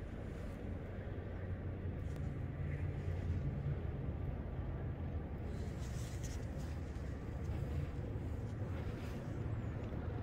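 Steady low outdoor rumble, with a faint hiss swelling briefly about six seconds in.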